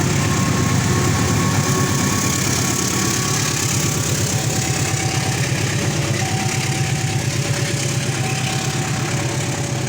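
A vehicle engine running steadily close by, with faint short steady tones coming and going above it.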